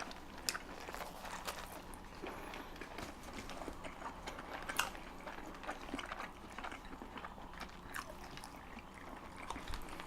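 Close-miked eating sounds: people chewing chili dogs, with scattered soft mouth clicks and smacks.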